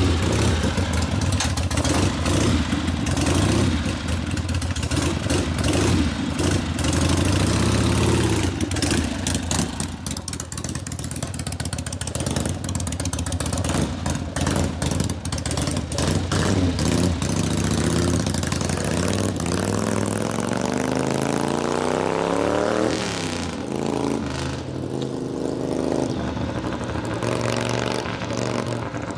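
1970 Harley-Davidson XLCH Ironhead Sportster's V-twin engine running and being revved, then pulling away and accelerating, its pitch climbing about twenty seconds in and dropping at a gear change before easing off as the bike rides away.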